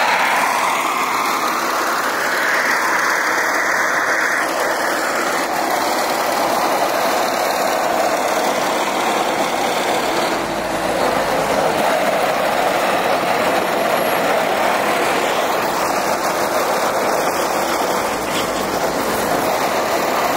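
Cars driving slowly past, a steady mix of engine and road noise, with one rising pitch over the first couple of seconds as a car pulls away.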